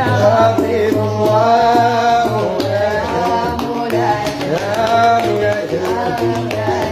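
Gnawa singing: young female voices sing a melody together over the plucked bass line of a guembri.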